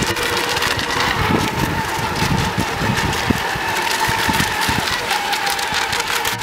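Radio-controlled racing boats running at speed, their motors giving a steady high whine. Uneven low rumbling comes through in the first half.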